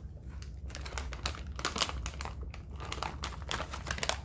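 Plastic snack bag crinkling and rustling in the hands as it is picked up and handled, a run of irregular sharp crackles.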